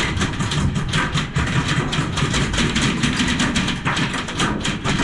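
Airsoft guns firing, many rapid overlapping shots and short full-auto bursts that rattle without a break.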